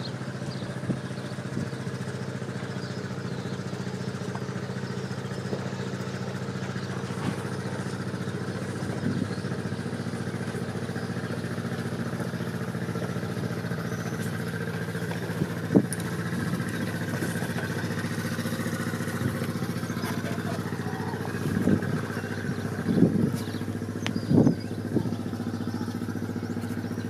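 An engine idling steadily with a low, even hum, with a few knocks and thumps near the end.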